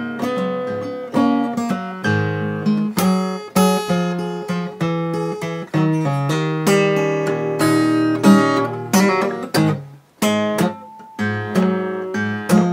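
Acoustic guitar playing a classic rock shuffle, picked with the fingers: a pulsing bass-string shuffle pattern with chord notes and strums over it, with a short break about ten seconds in.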